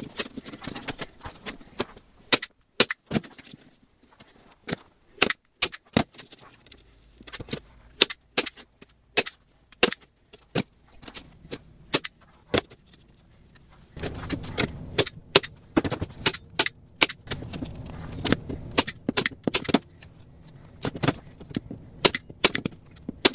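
Hand-held manual staple gun driving staples through vinyl upholstery into a wooden seat back: dozens of sharp snaps, often in quick pairs and runs, about one to two a second.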